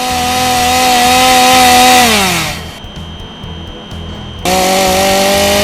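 Chainsaw running at high speed, then winding down about two seconds in. A couple of seconds later it starts again abruptly at full speed, its pitch creeping slightly upward.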